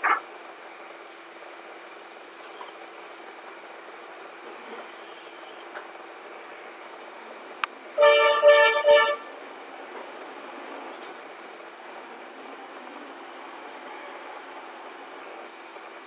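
A horn honking a few short toots in quick succession about eight seconds in, lasting about a second at a steady pitch, over a steady faint background hiss.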